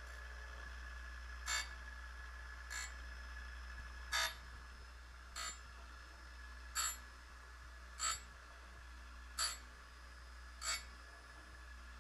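Surface grinder running with a steady motor and wheel hum. A short ringing metallic tick comes about every 1.3 seconds, alternately stronger and weaker, as the wheel lightly grazes the high spots of the steel V parallel on each table pass during a clean-up cut.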